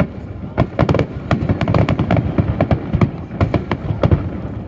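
Aerial fireworks display: shells bursting in quick succession, a dense run of sharp bangs and crackles, several a second.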